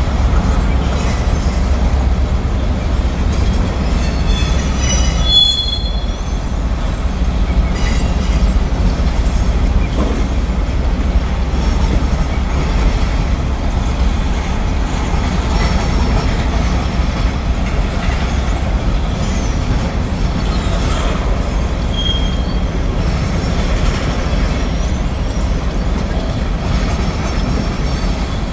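Freight cars of a manifest freight train rolling past: a steady low rumble of steel wheels on rail, with short high-pitched wheel squeals about five seconds in and again around two-thirds of the way through.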